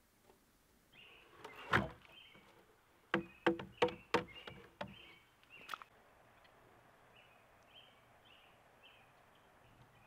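Sharp, hollow wood-on-wood knocks as logs of a log cabin wall are worked: one about two seconds in, then a quick run of six or seven between three and six seconds in. Faint bird chirps run behind them.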